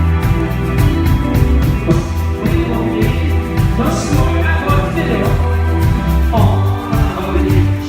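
Rock band playing live, with steady bass and drum hits, and singing coming in about halfway through.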